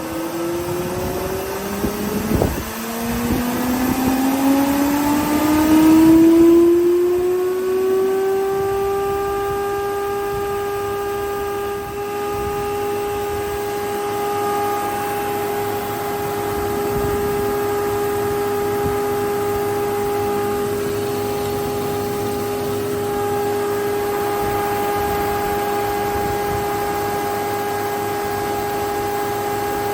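STU 630 thicknesser's four-knife cutterhead and 7.5 kW motor running up to speed with a rising whine over the first several seconds, then running steadily at full speed without load. A couple of knocks about two to three seconds in.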